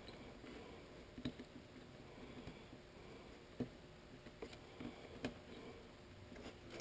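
Faint handling rustle of wires and small plastic servo-lead connectors being pushed into a power distribution board, with a few sharp clicks.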